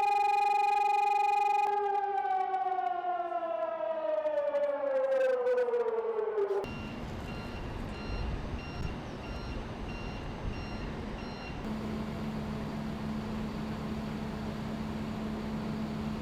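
Civil defence air-raid siren sounding a steady tone, then winding down in a falling wail for about five seconds until it cuts off abruptly. After that comes street noise with a high beeping about twice a second, followed by a low steady hum.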